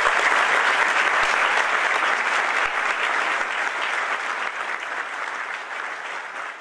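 Audience applauding, dense steady clapping that gradually fades over the second half.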